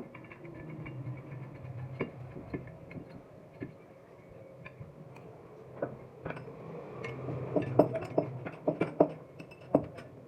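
Small hard metal parts clicking and clinking as they are handled, over a steady low hum; the clinks come thicker and louder in a cluster about two-thirds of the way through.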